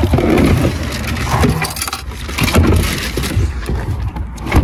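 Plastic bin bags crinkling and rustling as a hand rummages through the bags, cloth and objects in a car's spare-wheel well.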